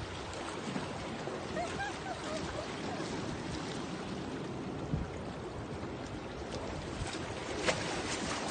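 Steady wash of the sea and wind against the breakwater rocks, with a sharp click about five seconds in and a louder one near the end.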